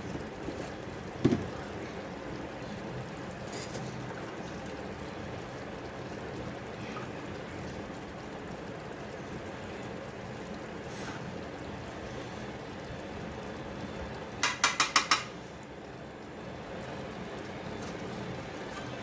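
Metal kitchen utensils clattering: a single knock about a second in, then a quick run of five sharp metallic taps about three-quarters of the way through, over a steady low hiss.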